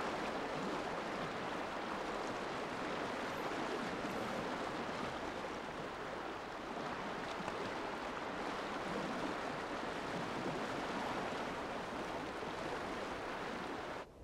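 River water rushing over shallow rapids: a steady, even hiss that cuts off suddenly near the end.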